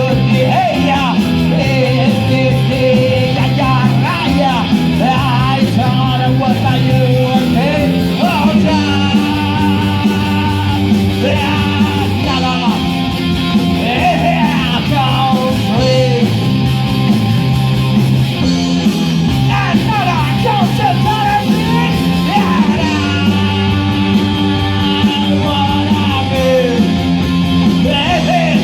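Punk rock band playing with electric guitar, with shouted singing over the full band.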